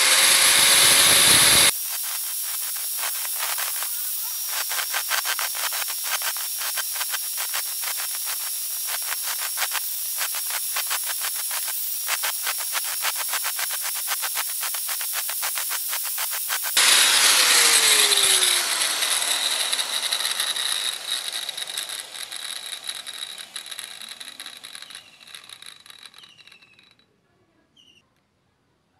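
Small angle grinder grinding the teeth of a steel saw blade to a sharp bevel: a steady hissing grind full of rapid ticking as the disc works along the teeth. About 17 s in it grows louder, then its pitch falls and it fades out as the grinder winds down.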